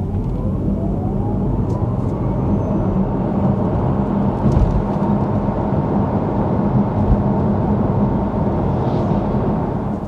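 Porsche Taycan Cross Turismo 4 electric car accelerating hard. The electric drive's whine rises in pitch over the first couple of seconds, then settles into a steady rumble of road and tyre noise.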